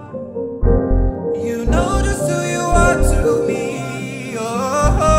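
Background music: a song with a singing voice over keys and a steady low beat.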